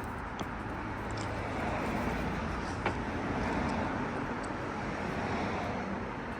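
Steady outdoor background noise like road traffic, with a few faint clicks and one sharper knock about three seconds in.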